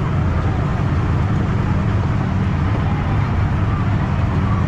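Steady low rumble of a running engine, with faint voices behind it.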